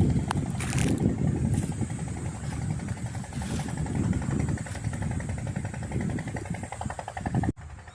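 An engine running with a fast, even firing pulse under a low rumble, cut off abruptly near the end.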